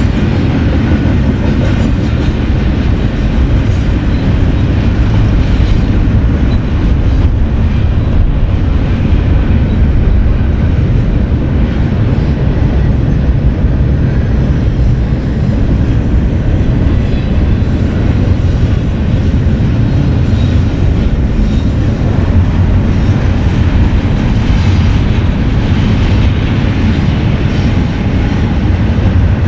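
BNSF freight train rolling past: a steady, loud rumble of steel wheels on rail with faint clicking.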